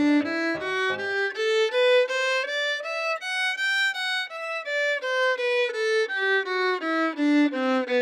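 Violin playing a quick melody of short notes that climbs to a high point about halfway and then steps back down, with a deeper string accompaniment under it only in the first second.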